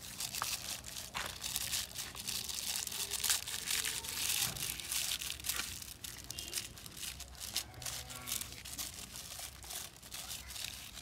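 Thin polythene sheet crinkling and rustling under gloved hands as it is smoothed and tucked beneath a rubber ring to seal the top of a plastic bucket airtight. A continuous run of small crackles, busiest in the first half.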